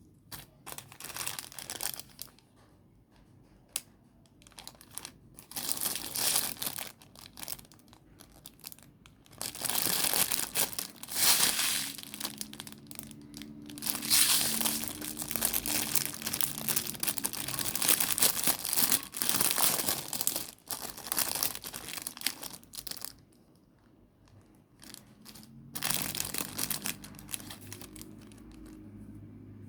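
Packaging crinkling and tearing as it is opened and handled, in rustling bursts of a few seconds with short pauses between.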